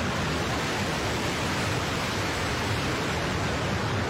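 Steady, even rushing noise with no separate events, like a strong hiss or wind on the microphone.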